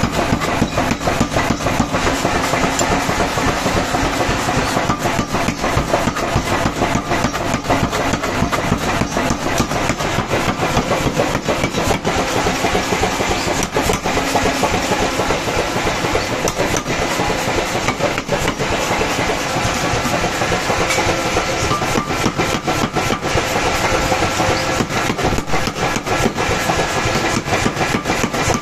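Power hammer striking red-hot steel held in tongs on its anvil, a rapid, unbroken run of blows over the running of the hammer's drive motor.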